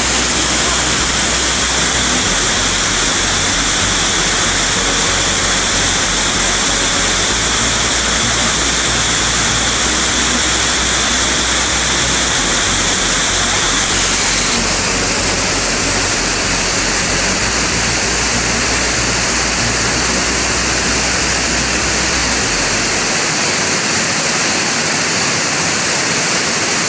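Steady rush of a waterfall's falling water, its tone shifting slightly about halfway through.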